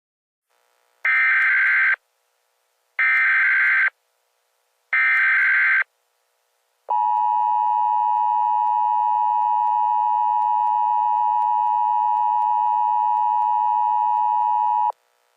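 Emergency Alert System header: three one-second squawks of digital SAME data tones about two seconds apart. These are followed by the steady EAS attention tone, held for about eight seconds, which announces a new alert.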